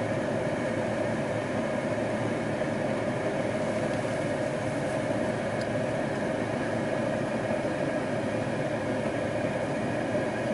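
Steady drone of a vehicle engine running, with an even hum and no changes in pitch.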